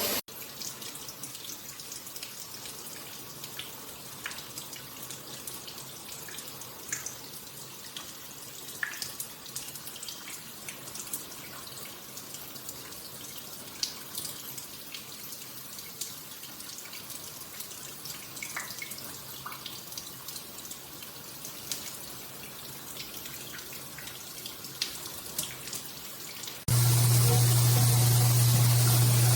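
Water spraying steadily from a shower head, with scattered small drips and splashes. Near the end it cuts to a much louder steady rushing noise with a low hum.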